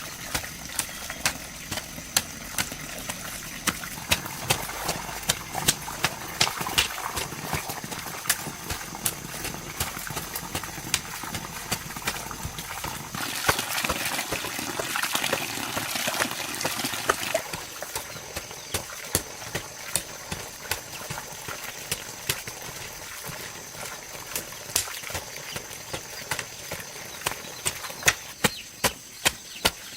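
Repeated sharp knocks at a steady pace, coming faster near the end at about two a second, with a louder stretch of noise in the middle.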